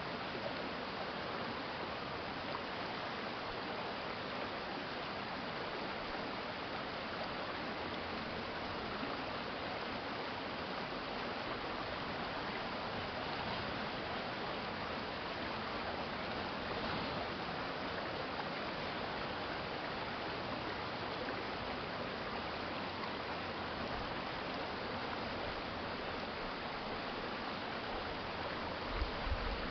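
Shallow urban stream flowing, a steady even rush of water. A brief low thump near the end.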